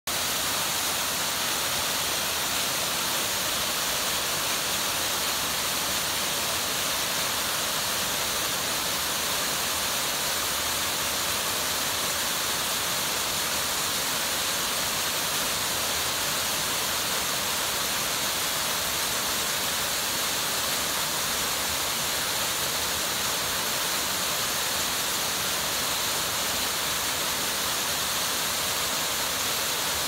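Waterfall with several streams pouring down a rock face into pools: a steady, bright rush of falling water that does not change.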